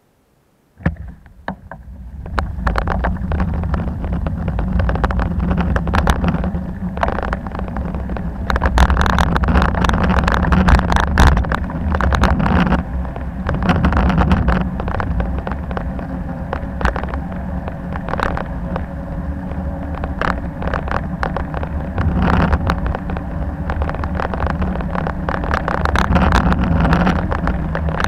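Wind rushing over an action camera's microphone and road rumble while riding a bicycle, with frequent short knocks and rattles from bumps. It starts suddenly about a second in, after near silence.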